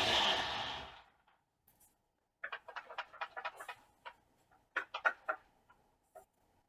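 Countertop blender motor blending onion runs steadily, then winds down and stops about a second in. A scattered run of light clicks and taps follows.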